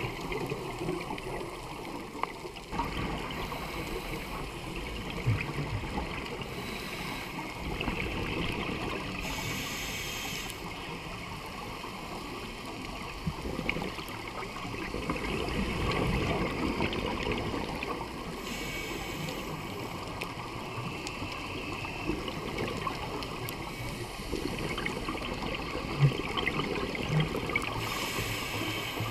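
Underwater bubbling and gurgling from scuba divers' exhaled air, heard through a camera housing, with a few louder hissing bursts of bubbles several seconds apart.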